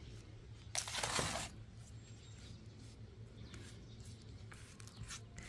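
A brief scraping rustle about a second in, from filler being spread over a tiled tabletop, over a faint low hum.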